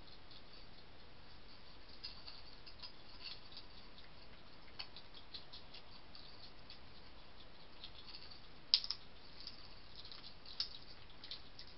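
Faint crunching and clicking of dry food being eaten from a dish, with two louder sharp clicks near the end.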